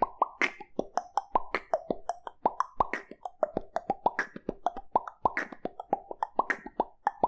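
Beatboxer's fast rhythmic pattern of lip pops, made by rolling both lips inward and throwing them out with air, about five or six pops a second, mixed with sharper kick- and snare-like mouth hits.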